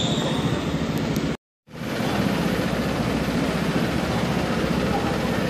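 Steady running noise of go-karts in an indoor karting hall. The sound cuts out completely for a moment about a second and a half in.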